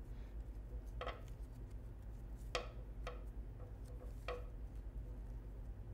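Light handling noise from weaving ribbon through a dream-catcher hoop: four short clicks or taps spread a second or so apart, over a steady low hum.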